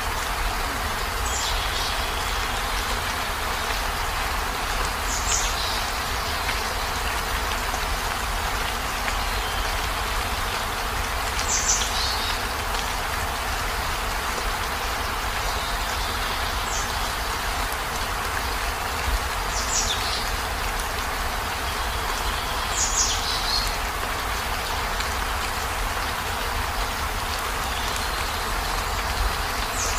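Steady outdoor background hiss with a low rumble under it, and a short high chirp that falls in pitch about seven times, a few seconds apart, like a bird call.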